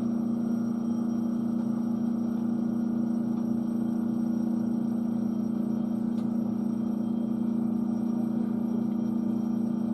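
Steady low hum inside a standing electric train carriage, its onboard equipment and air conditioning running while the train waits stopped at a signal.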